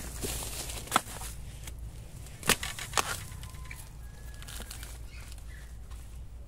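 A few sharp knocks and snaps among the bamboo and dry leaf litter during bamboo-shoot harvesting: one about a second in, then two more close together around two and a half to three seconds in.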